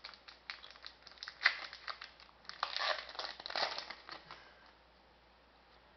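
Foil wrapper of a hockey trading-card pack crinkling as it is handled and torn open, in quick crackly bursts that stop after about four seconds.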